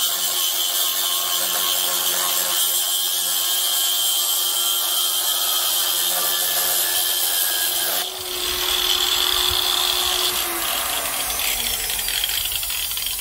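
Makita 9566CV variable-speed angle grinder, turned down to about 3 on its speed dial, cutting through a thick grade 8 steel bolt with a 4.5-inch cutoff wheel: a steady grinding sound. About eight seconds in the sound changes abruptly, and near the end a tone falls in pitch as the wheel winds down.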